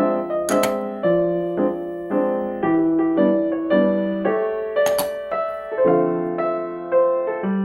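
Background piano music: a steady melody of struck notes, each fading away, with two sharp clicks about half a second in and again about five seconds in.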